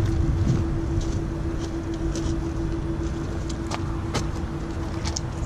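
Steady hum from a Tesla Supercharging session, charging equipment running as one constant tone over a low rumble. There are a few light clicks near the end.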